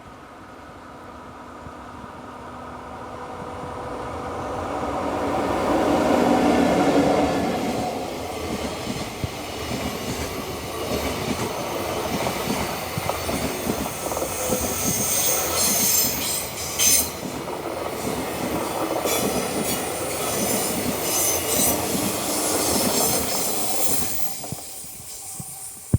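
JR Freight EF64 electric locomotive approaching and passing with a rising hum, loudest about six seconds in, followed by a long string of freight wagons rolling by with wheel clatter and high-pitched wheel squeal, fading out near the end.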